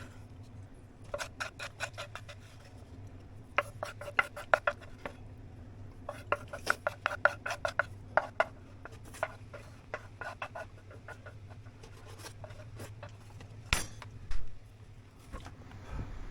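Rapid scraping strokes in short bursts of about a second, several strokes each, with pauses between, and a sharp knock near the end.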